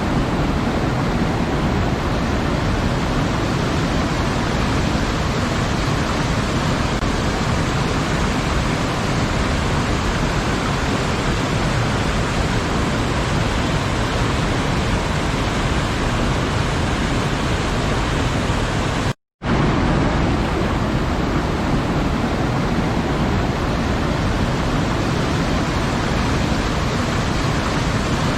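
Waterfall: a steady, dense rush of falling water, with a momentary drop to silence about two-thirds of the way through.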